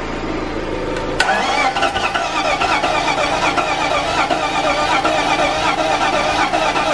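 Starter cranking the freshly swapped-in engine of a BMW E46 330i, starting suddenly about a second in and turning it over steadily with a rapid, even beat, without catching. This is typical of a first start with air still in the fuel system.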